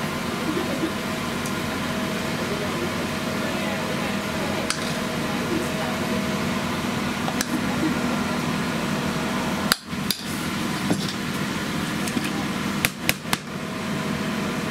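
Food-stall kitchen work: a steady machine hum with a few sharp knocks, single ones at first and then two short clusters near the end.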